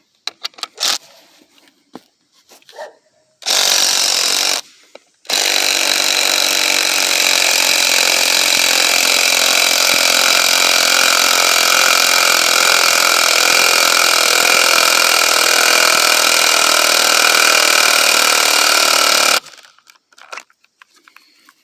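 DeWalt cordless impact driver hammering a lag bolt into wood: a short burst, a brief pause, then about fourteen seconds of continuous impacting that stops abruptly. It runs on a battery that the user thinks is almost dead.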